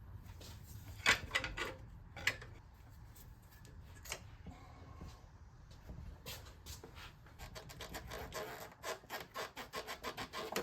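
Hand tools and engine parts clicking and scraping as they are handled, a few separate sharp clicks at first, then a quick run of clicks over the last few seconds.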